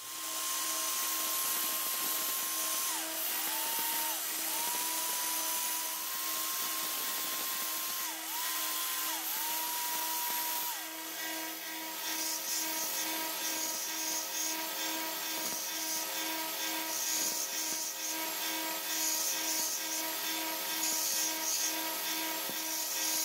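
Benchtop belt sander running with an 80-grit belt while steel screwdriver bits are sanded on it, with a hiss of metal on the abrasive belt. For about the first eleven seconds a hand drill spins a bit against the belt, its whine dipping in pitch and recovering several times as it is loaded, then the drill stops and a bit is held to the belt by hand.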